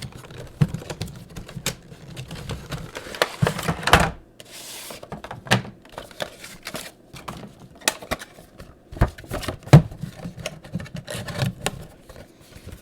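Cardboard and plastic toy packaging being handled: irregular clicks and taps, with a brief crinkly rustle about five seconds in.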